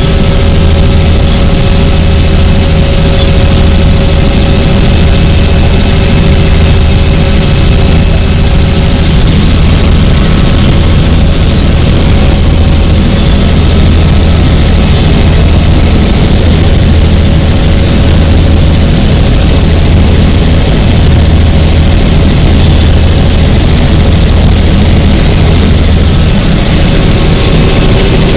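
Tour helicopter running in flight: a loud, steady low drone with a high turbine whine above it, heard from inside the cabin.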